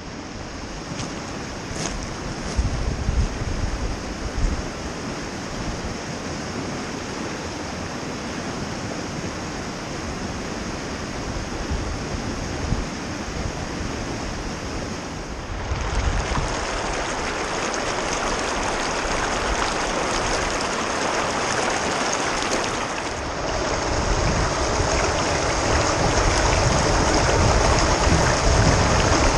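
River rapids rushing over rocks, a steady hiss of running water. It gets louder about halfway through and again near the end, with wind buffeting the microphone a few seconds in.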